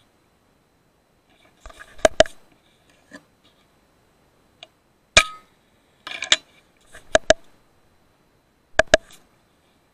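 FX Impact M3 .22 PCP air rifle being fired and cycled: five groups of sharp cracks and clicks spread over several seconds, most of them in quick pairs a fraction of a second apart.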